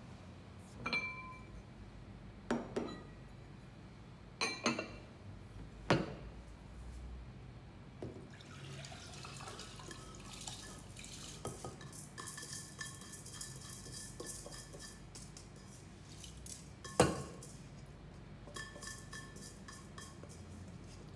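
Heavy clay pot and lid knocked down onto a stainless steel counter a few times, then a steel bowl tipped over the pot: its wet contents, washed rice, slide and patter out into the clay pot. Near the end the bowl knocks sharply against the pot and rings briefly.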